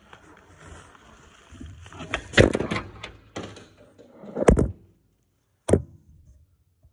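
Handling noise from a phone that is picked up and carried, rustling against fabric, with three loud knocks about two, four and a half and almost six seconds in as it bumps against hard surfaces and is tucked away out of sight.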